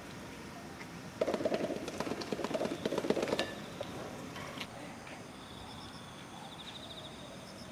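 A rapid run of hollow slaps lasting about two seconds, starting about a second in: a silverback western lowland gorilla beating his chest. A faint high trill follows near the end.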